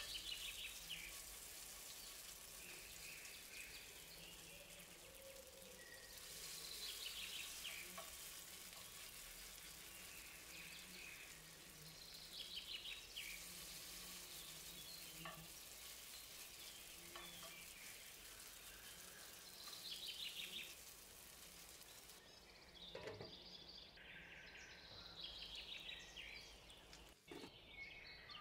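Zucchini and minced-meat fritters frying in hot oil in a pan: a steady, quiet sizzle. It jumps in level a couple of times and drops away abruptly about three quarters of the way through.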